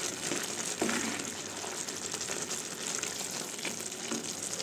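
Steaming vegetable noodles in gravy sizzling and bubbling in a hot pan while a wooden spatula stirs them, with a few soft scrapes and knocks.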